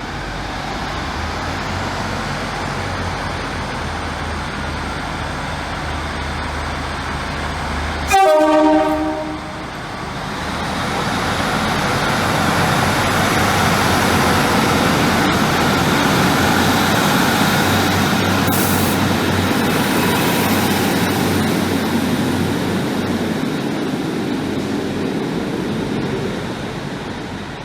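Vehicle running noise with one loud horn blast, about a second long and falling slightly in pitch, about eight seconds in. The running noise then swells and holds before easing near the end.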